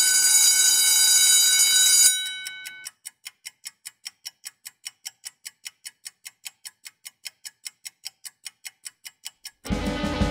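Alarm clock ringing, cutting off about two seconds in, then clock ticking, fast and even at about four ticks a second. Guitar music comes in near the end.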